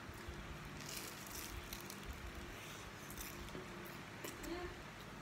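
Chewing on a bite of crisp, flaky croissant: faint, scattered crunches and crackles.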